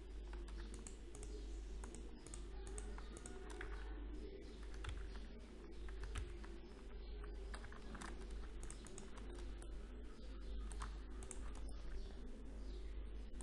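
Computer keyboard keys and mouse buttons clicking irregularly as shortcuts and selections are made, over a steady low hum.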